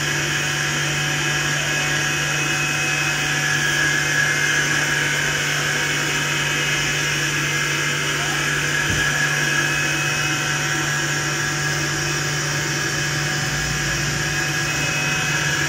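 A steady machine hum with a constant low tone under an even hiss, like a motor or fan running, unchanging throughout; a brief low knock about nine seconds in.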